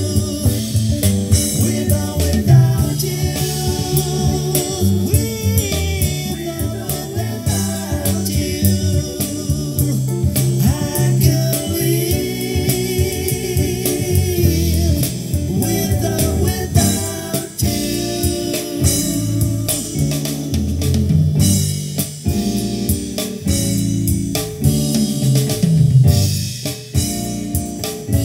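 Recorded music with singing, drums and guitar, played loud through a Grundig V304 integrated stereo amplifier and a pair of loudspeakers, with a strong, firm bass.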